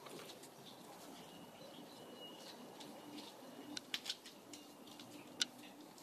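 Quiet background with a few sharp clicks and taps, clustered a little before the middle and once more near the end, and a faint thin high tone early on.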